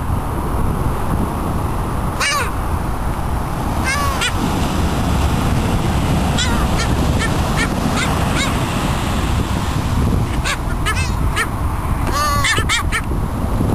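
Gulls calling over a steady low rush of surf and wind: short, scattered cries at first, then a quick run of several calls near the end.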